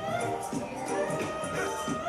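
Music with a steady beat and held melodic notes.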